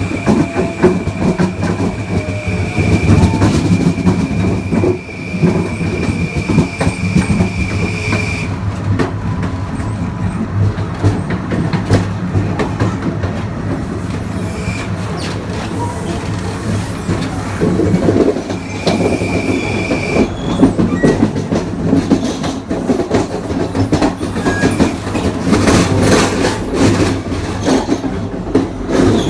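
Long Island Rail Road Kawasaki M9 electric multiple-unit car running at speed, with a steady rumble and wheels clicking and clattering over rail joints. A steady high-pitched whine sounds for the first eight seconds or so and returns briefly about two-thirds of the way through.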